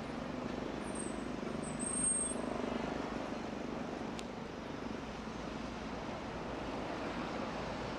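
Steady outdoor city din of traffic and construction-site machinery. A brief high squeal comes between one and two seconds in.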